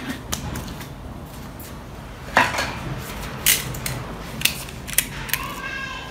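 A handful of sharp clicks and knocks from small hard objects being handled off-camera, spaced irregularly, with a short rising squeak-like tone near the end.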